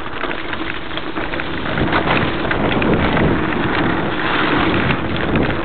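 Mountain bike descending a rough forest trail: tyres running over dirt and loose stones, with a constant patter of small clicks and rattles. The noise gets louder about two seconds in.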